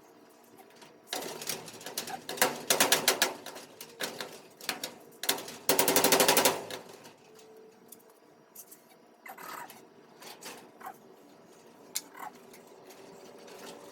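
A cordless drill run in short bursts, with a rapid rattling clatter: one longer burst about a second in and a dense one of about a second near the middle, then scattered clicks and knocks.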